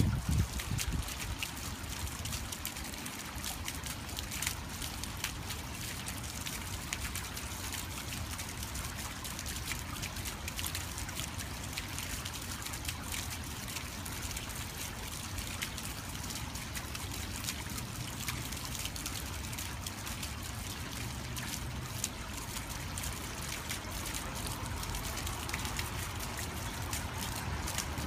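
Small fountain: a jet of water spouting from a frog-and-turtle statue, splashing and trickling steadily back down over the statue into a shallow pool. A low steady rumble runs underneath.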